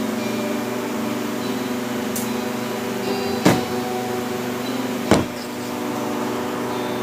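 Steady mechanical hum of a running appliance or fan, with two sharp knocks about three and a half and five seconds in.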